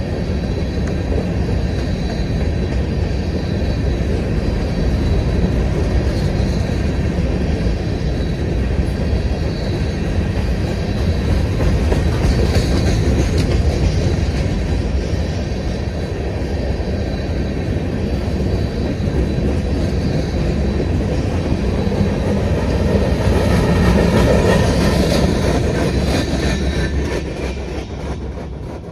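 Empty steel stone hopper cars of a freight train rolling past with a steady rumble of wheels on the rails, fading away near the end as the last cars go by.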